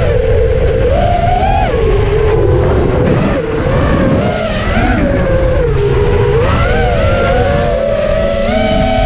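A small motor's whine wandering up and down in pitch, over heavy wind buffeting the microphone.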